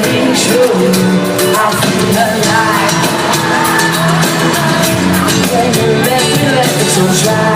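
Live pop-rock band music with singing, heard over a shouting, whooping crowd.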